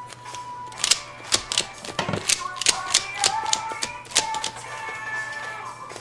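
Rubik's cube layers clicking as they are turned by foot, an irregular run of sharp plastic clicks a few a second.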